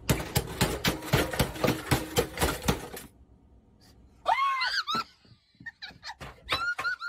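A metal saucepan clanging in a rapid series of strikes, each with a short metallic ring, for about three seconds. After a pause, short high-pitched shrieks come about four seconds in and again near the end.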